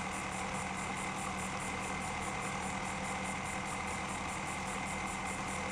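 Steady hum with a constant thin high whine, unchanging throughout, like a machine or engine running at a distance.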